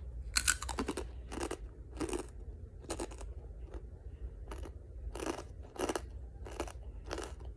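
Takis Guacamole rolled corn tortilla chips bitten and chewed close to the microphone: a sharp crunch about half a second in, then steady crunchy chewing at about two chews a second.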